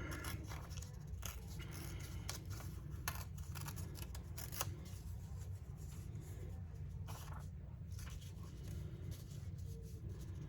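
Vellum paper being worked by hand, heard as scattered short rustles and clicks.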